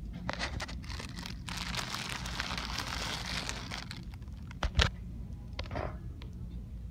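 Plastic wrapping on multi-roll toilet paper packs crinkling and rustling as the packs are handled and pushed about, with scattered knocks and one sharp thump just under five seconds in, over a steady low hum.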